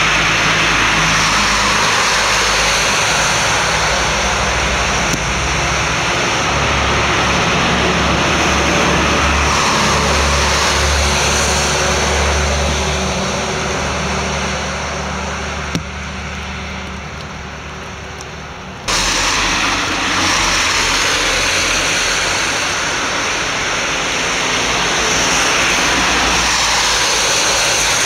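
Road traffic on a wet, snowy street: a continuous rushing noise with the low engine rumble of a lorry coming by, then a van and a car passing. About 16 seconds in there is a click, and the sound dips before jumping back abruptly about three seconds later.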